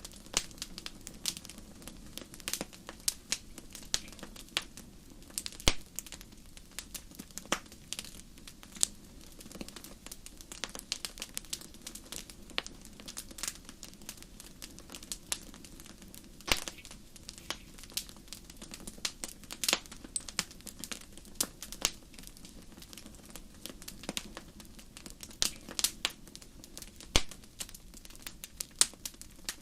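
Wood fire crackling, with irregular sharp pops and snaps over a soft low rumble of the flames.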